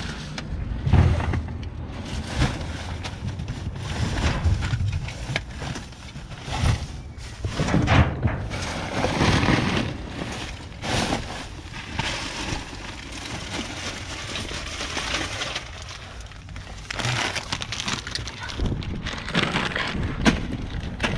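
Plastic trash bags rustling and crinkling as someone rummages through a dumpster full of bagged garbage, with occasional knocks of items being shifted.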